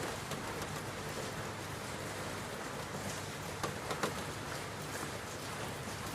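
Steady rain falling, an even hiss with scattered close drops ticking and pattering, a few sharper hits about four seconds in.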